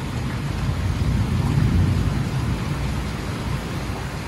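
Heavy downpour hissing steadily, with a low rumble of thunder that swells over the first two seconds and slowly fades.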